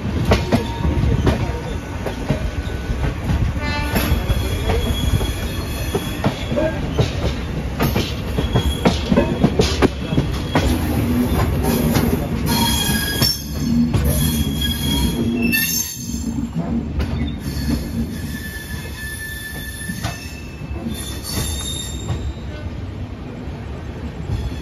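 Express train coaches rolling slowly over yard tracks and points, heard from the open coach door: a steady low rumble of wheels on rail with clicks over joints, and thin high wheel squeals that come and go, strongest about halfway through.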